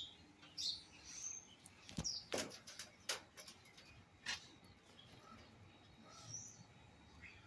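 Parrots and parakeets giving short, faint, high chirps now and then, with a few sharp clicks about two to four seconds in.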